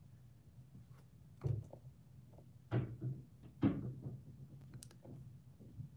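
A few soft knocks and taps, three of them louder and about a second apart, over a faint steady hum.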